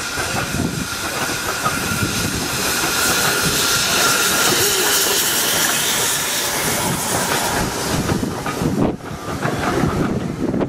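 Small steam tank locomotive passing close by with its train of wooden carriages, steam hissing from the engine. Wheels click over the rail joints as the carriages roll past in the later seconds.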